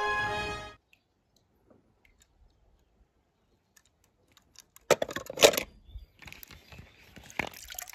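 Music cuts off about a second in, and after a pause small hard toy cars are handled, clicking and clattering in short clusters from about five seconds in.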